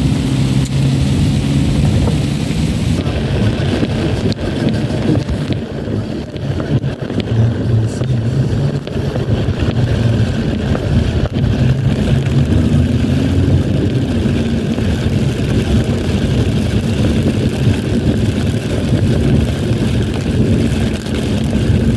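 Steady cabin noise inside a car driving in heavy rain: the engine running low and the tyres hissing on the wet road. The higher hiss drops a few seconds in.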